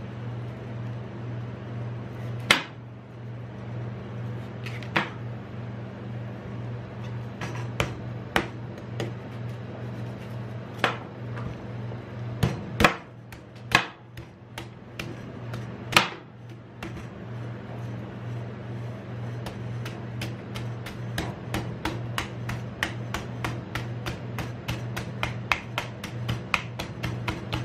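A knife chopping into the fibrous husk of a young green coconut: single sharp chops a few seconds apart, then a quick run of chops, several a second, through the last third. A steady low hum runs underneath.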